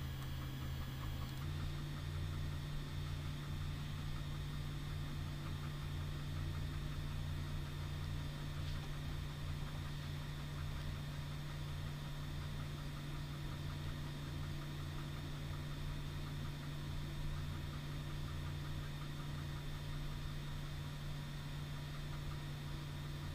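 Steady low hum with background hiss; the hum steps up slightly in pitch about a second and a half in.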